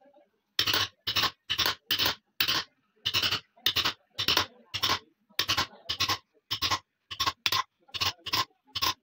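Hand chisel scraping and paring a wooden gunstock blank clamped in a vise, in quick repeated strokes about two a second.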